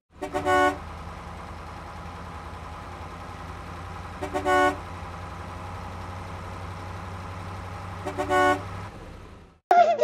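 Steady motor-vehicle engine rumble with a horn honking three times, about four seconds apart. The sound cuts off suddenly near the end.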